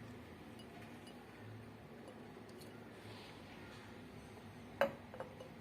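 Dried figs stuffed with garlic being put into a small glass jar: quiet handling, then one sharp clink against the glass almost five seconds in, followed by two lighter taps.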